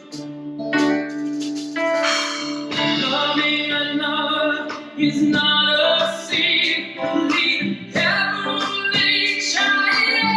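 Live band playing a song with vocals: singing over keyboards, guitar and drums, with a steady beat.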